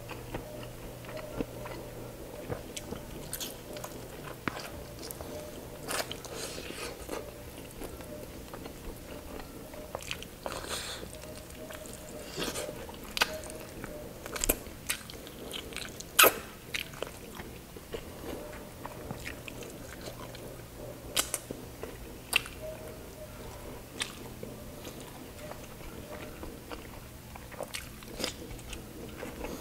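A man biting and chewing chicken and rice eaten by hand, with short sharp mouth clicks and smacks scattered throughout. The loudest click comes about halfway through.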